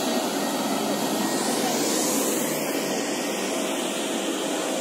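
Busy city street ambience: a steady wash of traffic noise that swells briefly about two seconds in.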